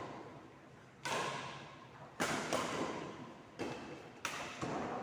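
A rally of sharp ball hits and bounces, about six in quick succession, each echoing in a large hard-walled hall.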